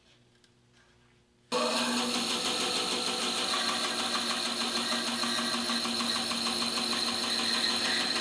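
A few faint handling clicks, then about a second and a half in a band saw comes in abruptly, running steadily with a constant hum and a high whine as its blade slices a trapezoid-shaped wedge block off the end of a wooden board.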